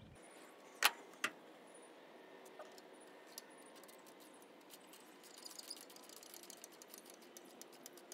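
Ratchet wrench with socket tightening a brass engine temperature sensor into the engine: two sharp metal clinks about a second in, then a run of quick light ratchet clicks through the middle and later part.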